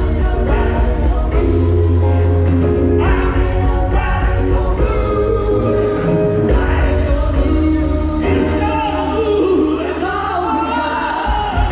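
Live music: singing over a band with keyboards, with a steady bass line underneath.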